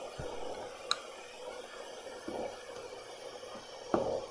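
Pink noise played through a resistor-capacitor low-pass filter into a small speaker: a steady hiss with its higher frequencies cut back. A sharp click about a second in and a knock near the end as a screwdriver is set on the trimmer resistor.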